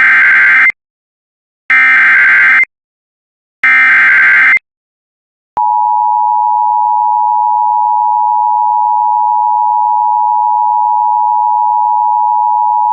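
Emergency Alert System activation: three bursts of the screeching SAME digital header, about a second each and two seconds apart. Then the steady two-tone EAS attention signal sounds for about eight seconds, heralding a severe thunderstorm warning.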